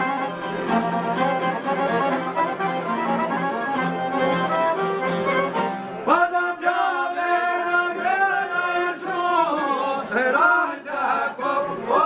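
Accordion and plucked long-necked Albanian lutes playing a folk tune. About halfway through, the plucking drops away and a man starts to sing long, wavering, ornamented lines.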